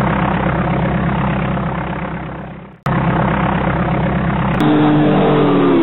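Airplane engine sound effect: a loud steady drone with a low rumble, which cuts out for a moment about three seconds in and comes back. Near the end a pitched whine slides downward.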